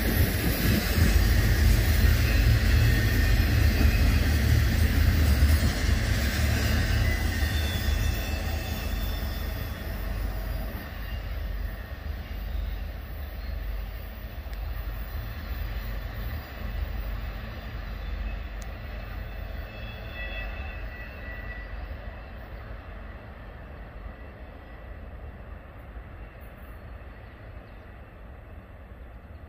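A train's cars rolling over the rails, a low rumble that fades steadily as the train moves away, with a few faint high-pitched wheel squeals.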